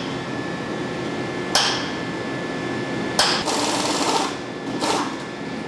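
Cordless impact wrench hammering in three bursts, a short one, a longer one of about a second, then another short one, as it runs bolts on the cast housing of a large hydraulic piston pump being taken apart.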